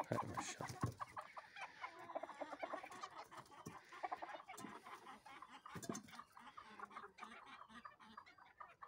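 A flock of chickens clucking: many short calls overlapping, with scattered faint clicks among them.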